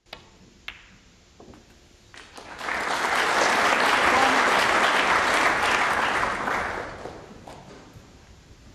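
Two sharp snooker ball clicks in the first second: the cue striking the cue ball, then the cue ball hitting the red. Audience applause for the pot follows, swelling for about four seconds and then fading.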